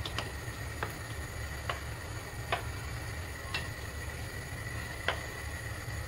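A black kitchen ladle stirring soup in a pot, knocking against the pot in sharp single clicks about six times, roughly once a second. A steady low rumble, such as a gas burner or cooker hood, runs underneath.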